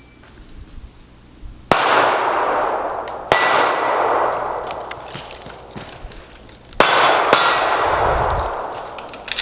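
Four 9mm SIG P320 pistol shots, each with a steel target ringing on the hit: two about a second and a half apart, then after a pause two more in quick succession. Each ring rises sharply and dies away over a second or two.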